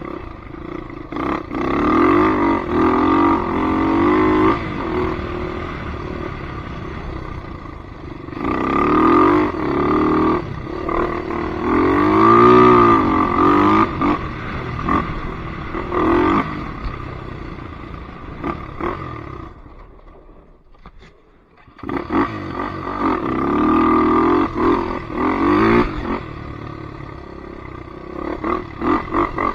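Polaris Predator 500 ATV's single-cylinder four-stroke engine running and revving up and down repeatedly, falling to a low level for a couple of seconds about two-thirds of the way through before revving again.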